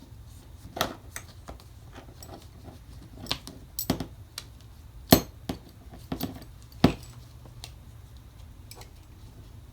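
Sharp metallic clicks and clinks of belt-buckle hardware being handled and snapped onto a leather belt, five louder clicks at uneven intervals among several lighter ones.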